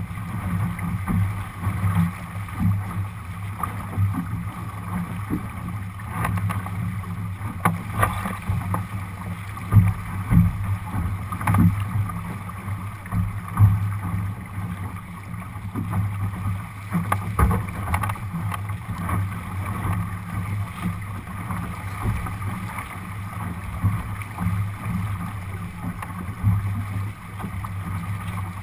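Water rushing and splashing along the hull of a Lightning-class sailing dinghy heeled over and sailing upwind, with wind buffeting the microphone and irregular knocks as waves slap the hull.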